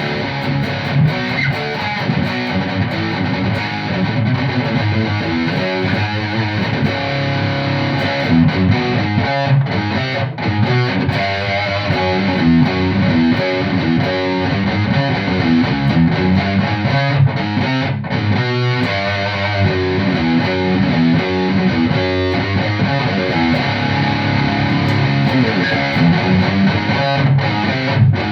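ESP E-II Horizon electric guitar with EMG pickups playing high-gain distorted rhythm riffs through an ENGL Fireball amp's rhythm channel, pitched down to C sharp by a DigiTech Drop pedal. The playing is continuous, with brief breaks about 10 and 18 seconds in.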